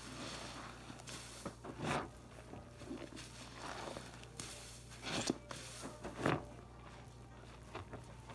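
Soapy sponges squeezed and pressed in sudsy bathwater, giving wet squelching squishes. The loudest come about two seconds in and twice more around five and six seconds in.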